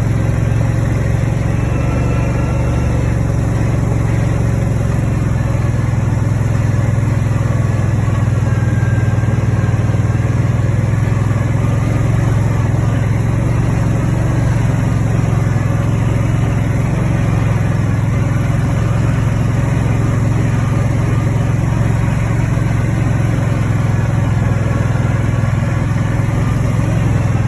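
Engine of a farm vehicle running steadily while driving along a dirt farm track, a constant low hum with road and rattle noise over it.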